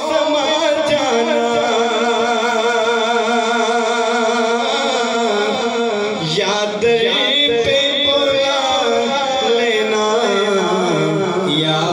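A man chanting an Islamic devotional recitation, a naat, through a microphone and loudspeakers, holding long notes that waver in pitch.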